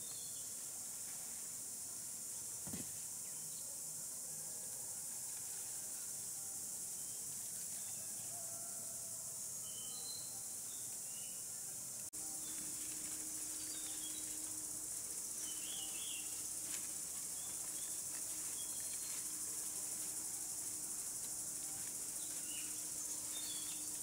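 Cicadas droning in a steady, high-pitched chorus, with a few short bird chirps scattered through it.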